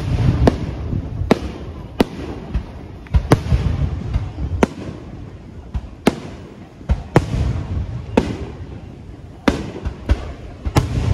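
Aerial firework shells bursting in quick succession: more than a dozen sharp bangs at irregular intervals, each followed by a low rolling echo.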